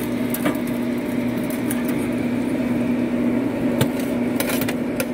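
Steady motor hum of a running Pit Boss pellet smoker, with a few light metal clicks and clatters of tongs and a knife against the grate and sheet pan, most of them about four to five seconds in.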